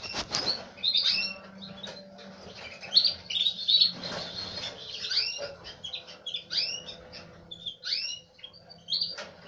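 Caged canaries calling: many short chirps, several sliding down in pitch, scattered throughout over a faint steady low hum.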